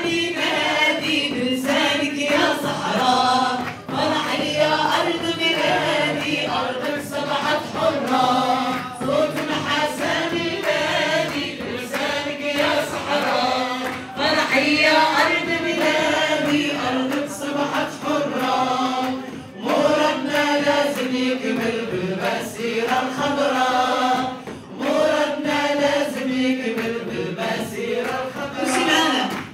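A group of voices singing a song together, some of them amplified through handheld microphones, with hand clapping along.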